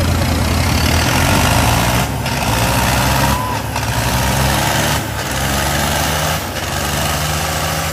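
Sonalika DI-35 Yodha tractor's diesel engine, fitted with a King Kong turbo and running without a silencer, working at full load in a tug-of-war pull, loud and steady with heavy exhaust noise. The engine note dips briefly about four times.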